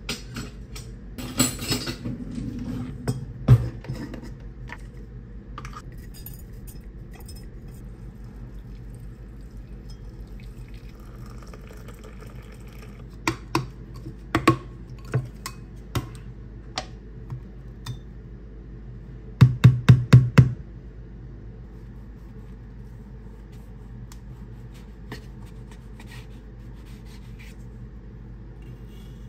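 Kitchen handling sounds over soft background music. Glass and metal clink as a glass teapot and its steel infuser are handled, then a snap-lock lid on a glass food container clicks several times. About two-thirds of the way through comes a quick run of about six loud clicks.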